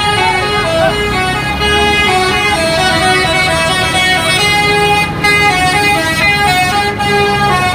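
Indonesian bus 'telolet' horn, a Basuri multi-tone air horn, playing a slow tune of held notes that step up and down in pitch, with two brief breaks about five and seven seconds in.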